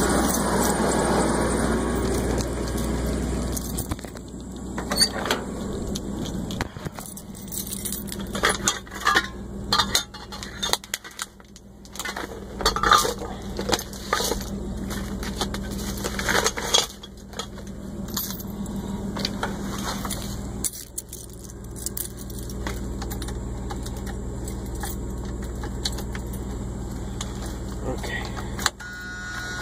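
Keys and loose metal parts clinking and jangling as they are handled, in an irregular run of sharp knocks through the middle, over the steady low hum of an idling engine.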